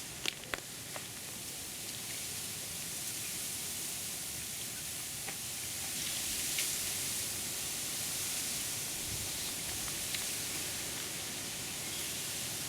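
Steady high-pitched hiss, with a few faint clicks in the first second.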